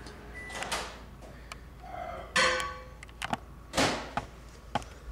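Microwave oven's running hum stops as its timer runs out, with a short beep. It is followed by sharp clunks and knocks as the door is popped open and the glass bowl is taken out and handled.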